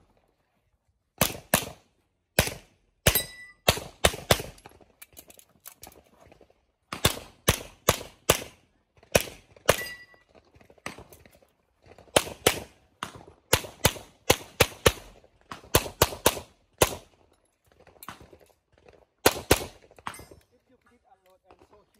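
Handgun shots fired in quick pairs and short rapid strings during a practical shooting stage, with pauses of a second or so between strings.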